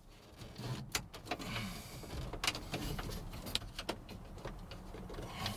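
Car radio being worked into a truck's dashboard opening by hand: scattered sharp clicks and knocks of plastic and metal over a rustling, scraping sound.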